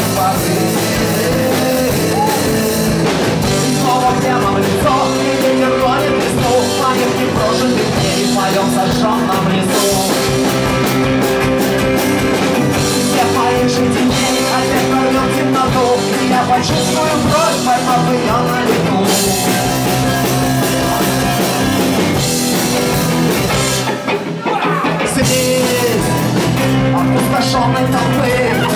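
Rock song with a singing voice over guitar and band.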